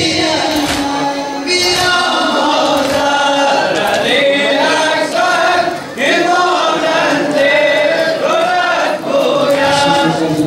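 A crowd of men chanting a Muharram lament (noha) together, loud and sustained, with a few sharp chest-beating slaps in the first two seconds.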